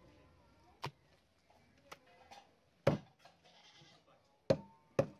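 Knife chopping beef on a wooden board: four sharp chops at uneven intervals, the last two about half a second apart.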